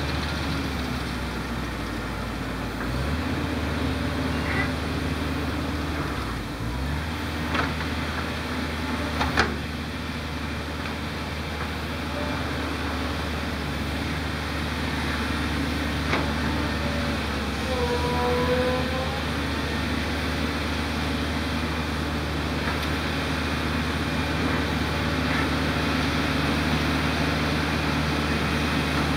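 Diesel engines of a Volvo EC210 excavator and a small crawler dozer working together: a steady low drone whose pitch shifts as they take load, with a few sharp metallic clanks, the loudest about nine seconds in.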